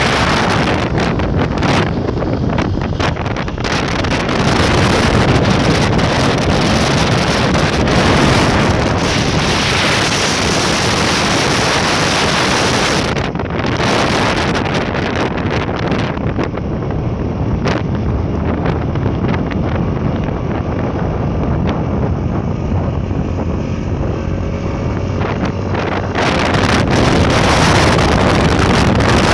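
Heavy wind buffeting the microphone of a phone carried on a moving motorbike, over the low drone of the engine and road. The wind eases for a long stretch midway and picks up again near the end.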